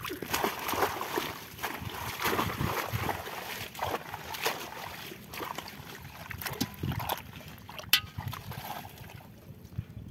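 Water sloshing and splashing as hands and arms work through water hyacinth in shallow, muddy river water, with the leaves and stems rustling and snapping in irregular bursts.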